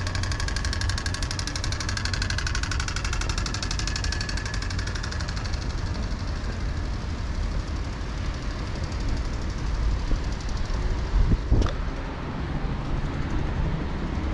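City street traffic: motor vehicle engines running with a steady low rumble, and one vehicle passing close and loud about eleven seconds in.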